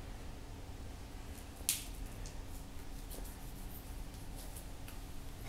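Light clicks and scuffs of two cats pawing at a wand toy on a tile floor, with one sharper click just under two seconds in, over a low steady hum.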